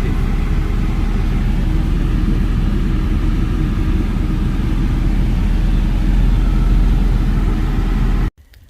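Car driving along the road: a steady rumble of engine and road noise that cuts off suddenly near the end.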